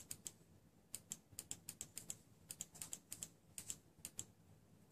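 Faint, quick light clicks in short runs: small metal parts of a Kayfun rebuildable atomizer deck and a small screwdriver being handled as a coil lead is wrapped and the post screw tightened.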